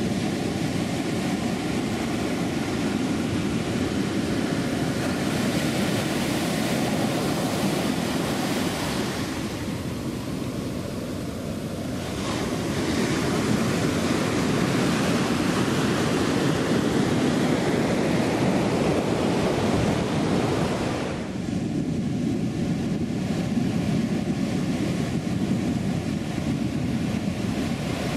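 Ocean surf breaking and washing up a sandy shore, a steady rush of water, with wind buffeting the microphone.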